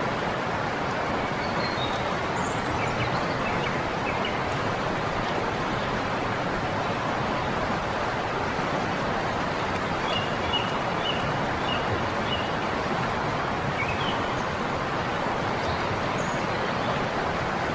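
River water rushing steadily, with faint short bird chirps over it, a quick run of them about ten seconds in.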